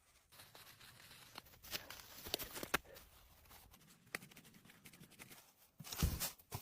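Dry reeds rustling and crackling as they are handled, with scattered clicks and a heavier knock about six seconds in.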